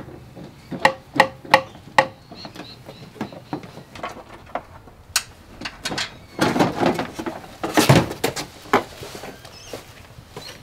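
Plastic clicks, scrapes and knocks from a car's front bumper cover being unfastened and pulled off its mounts. There is a quick run of sharp clicks about a second in, then a denser patch of scraping and rattling about six to eight seconds in, with the loudest knock near eight seconds as the bumper comes free.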